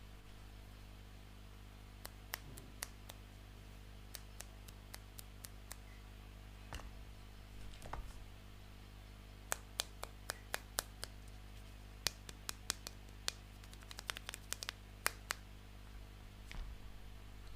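Small plastic toy pieces being handled and set down: a run of sharp, irregular clicks and taps, sparse at first and coming thick and fast in the second half, over a steady low hum.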